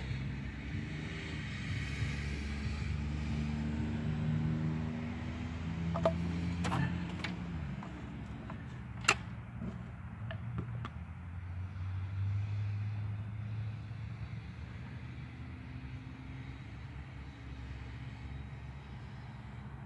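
A motor vehicle engine running steadily, its pitch shifting now and then, with a few sharp clicks, the loudest about nine seconds in.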